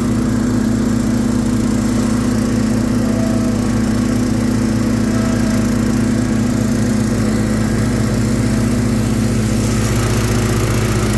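Hustler FasTrak zero-turn mower's 18 hp Kohler engine running steadily, with an even, unchanging engine note.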